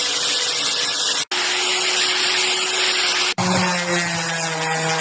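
Electric power tools working wood, in short clips cut together: a steady whine of motor and cutting noise that changes abruptly about a second in and again past three seconds, where a lower motor hum comes in.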